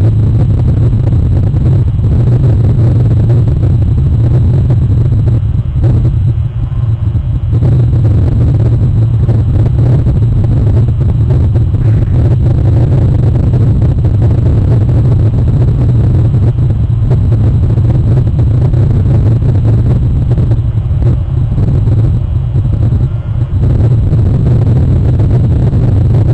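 Steady, loud low rumble with a constant low hum, easing off briefly twice.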